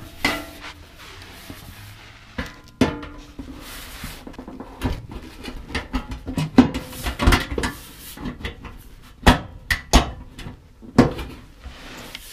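Metal front splash pan being handled and pushed up into place under the cab floor: irregular clunks, knocks and rattles of sheet metal against the body, some sharp and loud.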